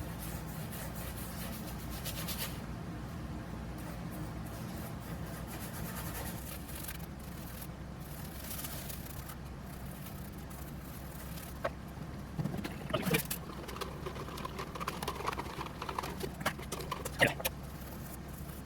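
Chip brush spreading penetrating epoxy over a wood slab: faint soft brushing with a few light knocks, over a steady low hum.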